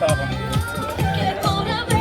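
Bachata music with a singer's voice over a steady rhythmic beat.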